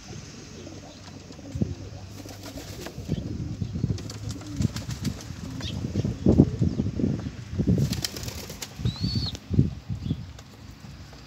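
A flock of domestic Old Polish and Rzeszów pigeons feeding on scattered grain: irregular wing flaps and scuffling, with sharp clicks of beaks pecking at the grain.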